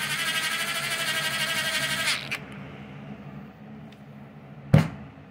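Small electric screwdriver motor running with a steady whine for about two seconds, driving in an ignition coil mounting screw, then stopping abruptly. A single sharp knock comes near the end.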